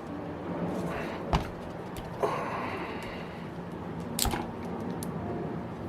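Hand tools working on a model glow engine as a part on its front housing is loosened: a few sharp metal clicks and knocks, with a short scrape just after two seconds in.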